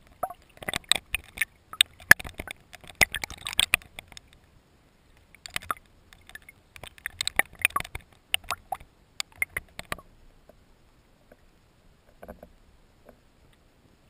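Water sloshing and crackling around an underwater camera: clusters of sharp clicks and splashy crackles over the first ten seconds, then thinning out to one short burst near the end.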